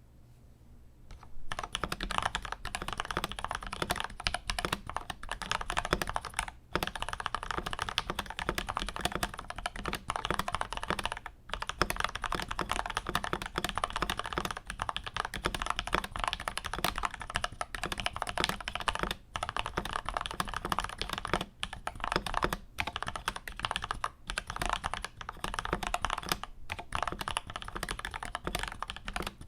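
Akko 5075S mechanical keyboard, with lubed and filmed Gateron Milky Yellow linear switches on a polycarbonate plate, typed on in a fast, continuous stream of keystrokes. The typing starts about a second and a half in and breaks off briefly a few times.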